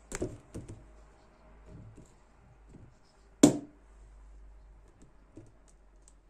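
Small clicks and knocks from handling a folding knife and tools on a silicone work mat: a quick run of clicks at the start, faint ticks, and one loud sharp click about three and a half seconds in.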